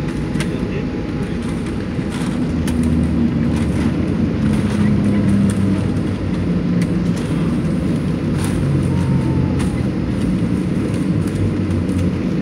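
Boeing 737-700 rolling out on the runway after landing, heard from inside the cabin: a loud, steady low rumble of engines, wheels and airflow as the jet slows with its ground spoilers raised, with scattered small cabin rattles and knocks.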